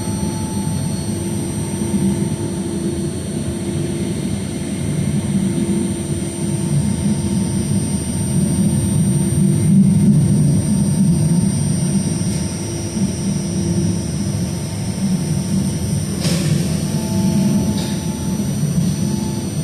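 Buffalo Metro Rail light-rail car running along the line: a steady rumble of wheels on rail with steady whining tones from the car's electric drive, and a single sharp clack about sixteen seconds in.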